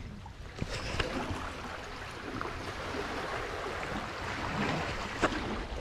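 Steady wash of seawater, with a few short clicks and knocks over it.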